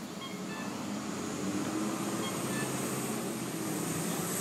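A road vehicle passing close by on the street, its engine and tyre noise swelling over the first couple of seconds and holding, with a faint high whine that peaks near the end.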